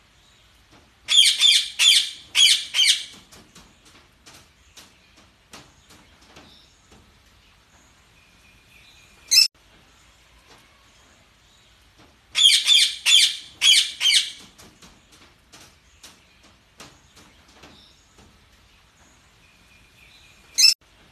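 Budgerigars chirping: two bursts of loud, rapid, shrill chirps, about a second in and again about twelve seconds in, a single sharp chirp in the middle and another near the end, with softer scattered chirping throughout.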